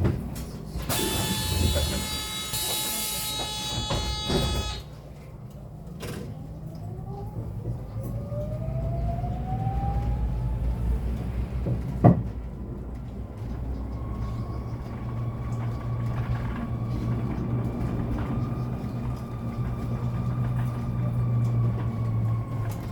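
Hyundai Elec City Town electric bus with a door chime over a hiss of air for the first few seconds. It then pulls away, its drive motor whining and rising in pitch as it accelerates, and settles into a steady whine over road rumble. A single sharp click comes about halfway through.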